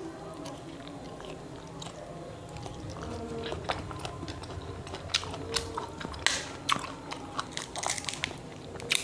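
Chewing of matoa fruit, with sharp cracks and crackles as the fruits' thin skins are split open by hand. The cracks come more often and louder from about halfway through.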